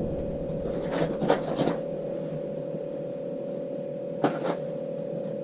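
A steady hum with a few short clicks or scrapes: three about a second in, and two more about four seconds in.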